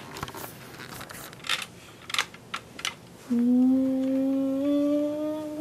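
Small plastic toy pieces clicking and clattering as they are handled, then about three seconds in a child's long, steady hummed note, slowly rising in pitch.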